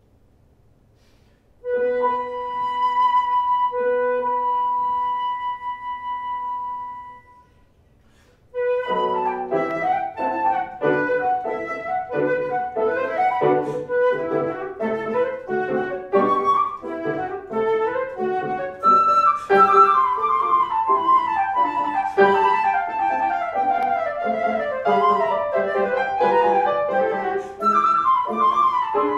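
Flute and piano duo playing classical music. Sustained opening notes start about two seconds in and fade out by seven seconds. After a short pause, a fast passage of running notes begins about nine seconds in and continues.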